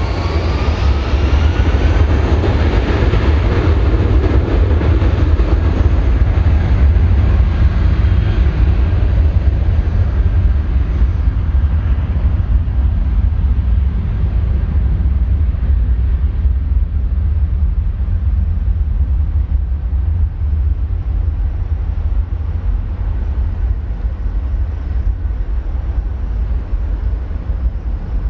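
Airbus A320-232's IAE V2500 jet engines at takeoff thrust as the aircraft climbs away. The roar is strongest in the first few seconds, then its higher sound fades and leaves a steady low rumble.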